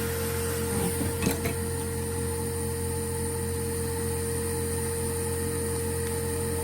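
A steady machine hum with a high whine, and a few light clicks about a second in.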